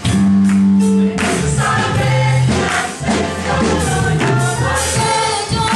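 Church choir singing a gospel song with amplified accompaniment, a deep bass line moving under the voices.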